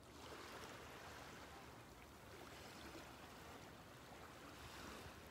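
Small waves washing gently onto a sandy beach, faint and steady.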